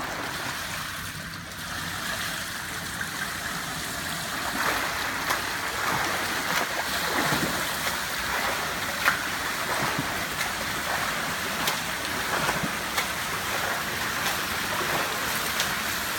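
Water splashing from a swimmer in short fins doing dolphin kicks combined with freestyle arm strokes, a steady churn of splashes that grows louder from about four seconds in.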